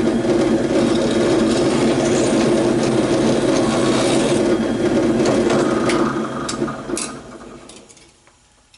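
Electric drill running steadily as it bores out a mounting hole in a plastic battery tray to 5/32 inch, then winding down to a stop about six to eight seconds in, with a few light clicks near the end.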